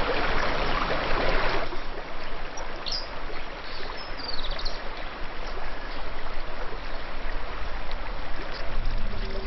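Running water of a stream, a steady rushing noise that drops a little in level just under two seconds in, with a few brief high chirps a few seconds in.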